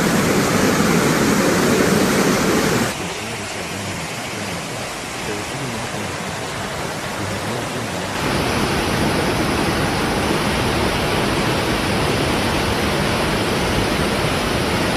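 Muddy floodwater from an overflowing river rushing past buildings: a steady, dense rushing noise. It comes in three stretches split by sudden cuts about three and eight seconds in, and the middle stretch is quieter.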